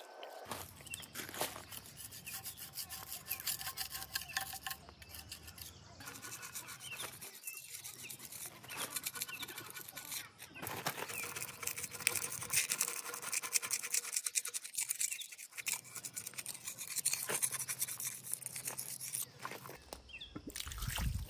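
Hand scrubbing and scraping on the glazed surface of an old sink, in rapid back-and-forth strokes with a few short pauses.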